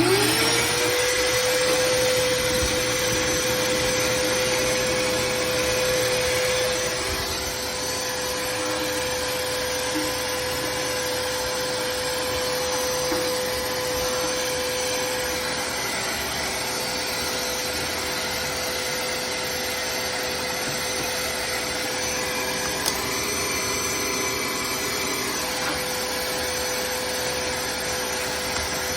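Vacmaster VBV1210 12-gallon wet/dry shop vacuum switched on: its motor spins up with a rising whine in the first second, then runs steadily with a constant hum and rush of air.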